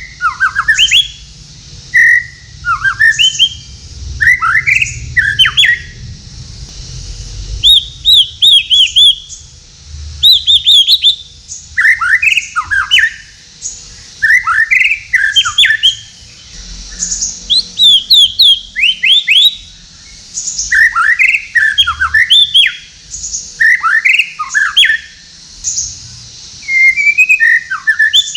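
White-rumped shama singing: loud short phrases of quick, sweeping whistled notes, one every second or two with brief pauses between. Some phrases are rapid runs of clipped higher notes.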